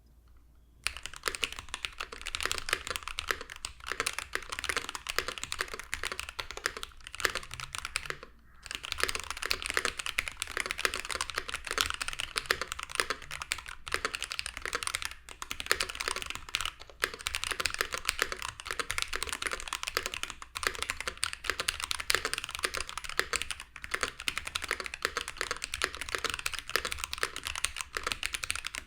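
Fast, continuous typing on an Ikki68 Aurora mechanical keyboard with stock Akko CS Starfish linear switches, an FR4 plate and GMK Fuyu keycaps: a dense, clacky run of keystrokes. It starts about a second in and breaks off briefly about a third of the way through.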